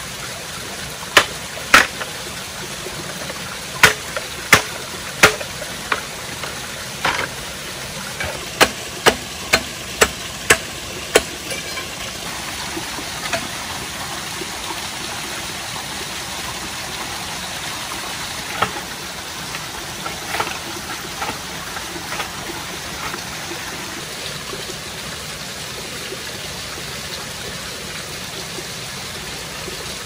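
Chopping strikes on wood, about a dozen sharp blows in the first half, then a few lighter scattered knocks, over the steady rush of a waterfall.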